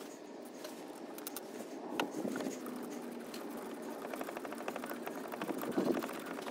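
Ratchet wrench clicking rapidly as the alternator's mounting stud is run in, with a sharper knock about two seconds in.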